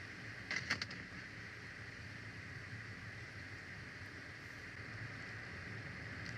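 Steady outdoor background noise picked up by a nest-camera microphone, with a brief cluster of sharp, short clicks about half a second in.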